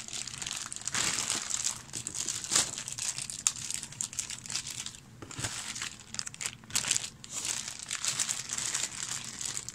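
Clear plastic bags holding plastic miniatures crinkling as they are handled and pulled out of a cardboard box, an irregular run of crackles.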